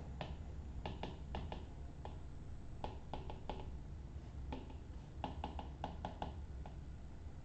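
Stylus tapping and clicking on a tablet's glass screen while handwriting: a string of faint, irregular clicks, some in quick clusters.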